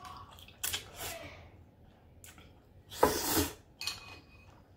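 Close-up eating sounds of spicy instant noodles: noodles slurped and chewed, chopsticks clinking against a glass bowl, and a loud slurp from the bowl about three seconds in.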